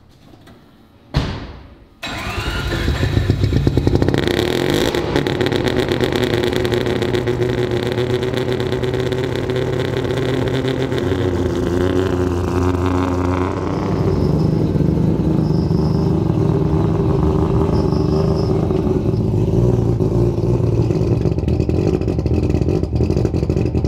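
Street-ported three-rotor Mazda RX-7 rotary engine starting: a short crank about a second in, then it fires about two seconds in. It then runs steadily at idle through the rotary exhaust, with a rapid pulsing beat.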